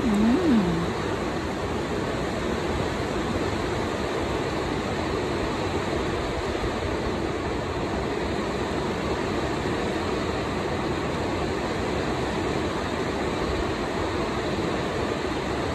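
Steady hiss of background noise with no clear source, and a short rising-and-falling vocal hum right at the start. No snips of the cuticle nippers stand out above the hiss.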